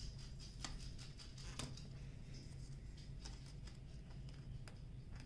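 Faint handling noises from a rolled canvas being slid out of a cardboard shipping tube: soft scraping with a few light taps, over a steady low hum.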